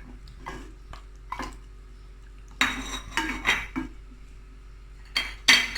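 Metal cooking utensils clinking and knocking against a frying pan and dishes: a few scattered knocks, a busy cluster from about two and a half to four seconds in, and two sharp ones near the end.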